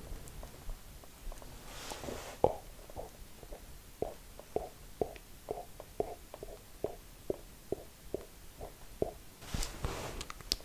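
Close-miked mouth sounds made with a mouthful of e-cigarette vapour: a run of soft wet pops and lip smacks, about two a second, between two breathy puffs of air, one about two seconds in and one near the end.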